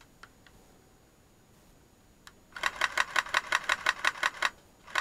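Airsoft electric gun firing on full auto: a rapid even rattle of about a dozen shots a second. It starts about halfway through, lasts some two seconds, stops briefly and starts again just before the end.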